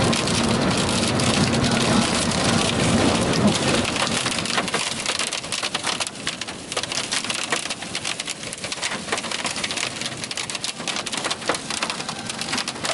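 Hail pelting a car's roof and windshield, heard from inside the cabin as a dense, fast patter of hard clicks. It is heaviest for about the first four seconds, then thins out.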